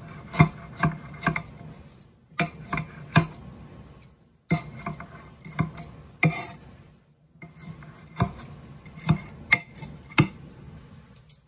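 Large kitchen knife chopping fresh herbs on a marble cutting board: sharp knocks of the blade on the stone, in quick runs of several strokes with short pauses between.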